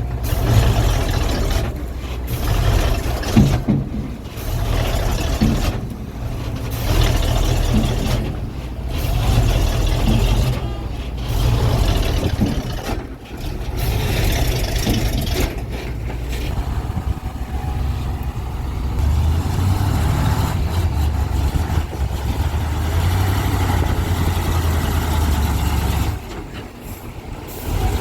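Heavy diesel engine running with a loud low rumble, surging and easing every couple of seconds, then holding steadier with a brief drop near the end.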